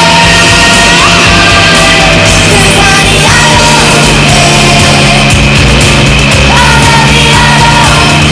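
Loud, heavily compressed rock music, with a melody line moving between held notes over a steady low bass note.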